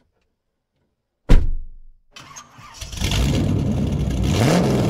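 Intro sound effect: a sharp hit about a second in, then an engine starting up and running loudly, with a short rise in pitch near the end.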